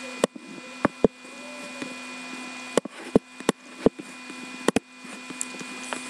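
Computer mouse clicking about nine times at irregular spacing over a steady electrical hum.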